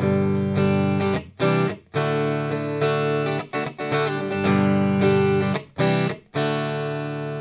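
Silvertone 1303 U2 reissue electric guitar on its neck lipstick pickup, played clean through a Marshall Origin 50 amplifier: a run of strummed chords with short breaks between them, the last chord left ringing and fading near the end.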